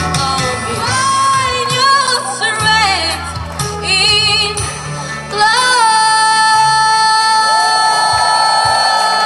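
A young woman singing solo into a microphone over instrumental accompaniment, her voice wavering in vibrato. About halfway through she moves into one long held note.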